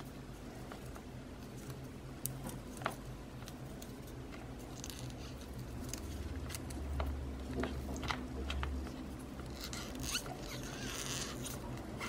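Sticky crackling and clicking from hands squeezing and kneading a cut-open stress ball's gooey filling and rubbery skin in a bowl of cornstarch, with scattered sharp clicks and longer bursts of crackle about five seconds in and again near the end.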